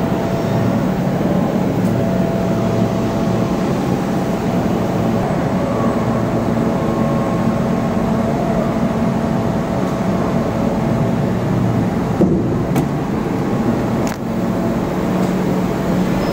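Doosan Puma MX2500 CNC turning centre running, a steady machine hum with a few sharp clicks about three quarters of the way through.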